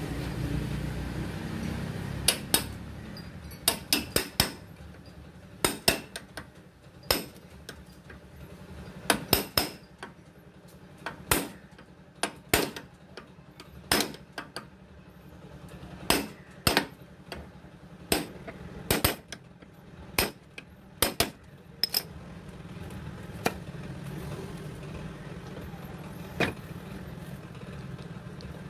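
Hammer blows on metal, struck in irregular groups of two or three with a short ring after each, as when tapping a scooter's front wheel bearing race into or out of its seat. The blows stop a few seconds before the end.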